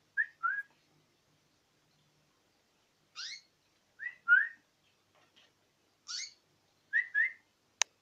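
White pet canary calling in short rising whistled chirps, mostly in quick pairs, with a few higher, harsher calls between them. A single sharp click comes just before the end.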